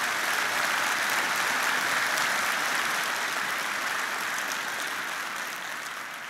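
Large audience applauding steadily, tapering slightly near the end.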